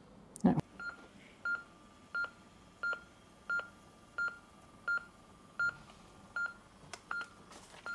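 LIFEPAK 12 patient monitor/defibrillator sounding its heart-rate beep: short, even electronic beeps about every 0.7 seconds, one for each heartbeat, following a normal pulse of roughly 85 a minute.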